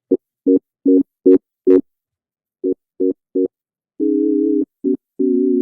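Virtual ocarina patch from a Logic Pro template playing short detached notes, five in quick succession and then three more, followed by longer held notes near the end.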